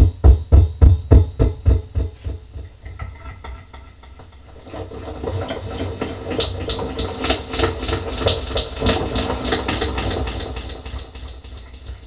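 Electronic, synthesizer-like sound effect with a repeating echo. Evenly spaced pulses, about three a second, fade away over the first two seconds. From about five seconds in, a denser pulsing, echoing texture builds up.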